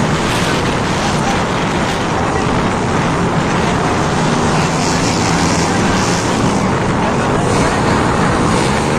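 Dirt bike engine running at a steady pace while riding, with a dense rushing noise over it.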